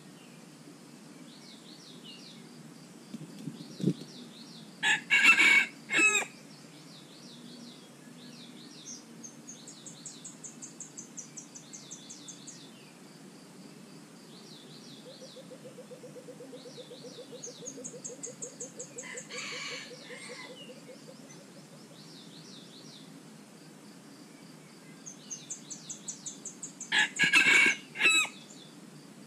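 Junglefowl roosters crowing: a loud crow about five seconds in, a fainter answering crow about two-thirds through, and another loud crow near the end. These are rival cocks calling to each other. Steady insect and bird chirping runs underneath.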